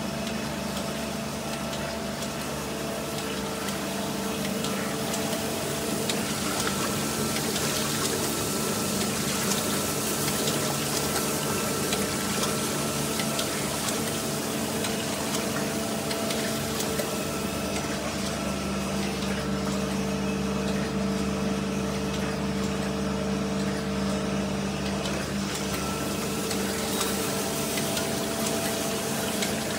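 Wagner FSG 1224 ADIV surface grinder running: the grinding wheel spins over the work while coolant pours and splashes, giving a steady motor and pump hum under a constant wash of hiss.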